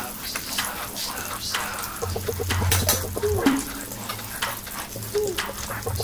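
Catfish pieces sizzling in hot oil in a non-stick frying pan, with a metal spatula scraping and knocking against the pan as they are turned.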